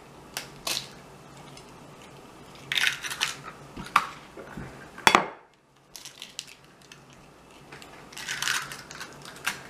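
Eggshells being cracked open over a ceramic plate: sharp taps and crunching of shell in several short clusters, with light clinks against the plate, the loudest crack about five seconds in.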